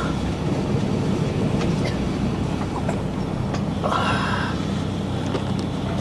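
Diesel express railcar heard from inside the carriage, its engine running with a steady low hum as the train rolls to a stop at the platform. A brief hiss comes about four seconds in.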